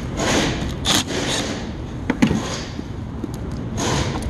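Scraping and a few sharp clicks as the disconnected negative battery cable and its terminal clamp are handled and pulled away from the battery post.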